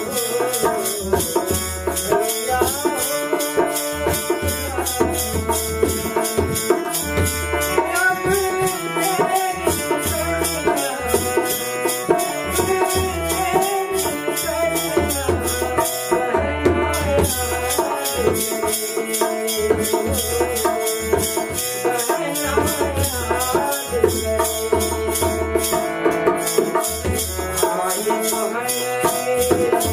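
Devotional bhajan: a man singing over a harmonium, with a dholak drum beating and a kartal clapper jingling to keep the rhythm. The jingling drops out briefly about halfway through.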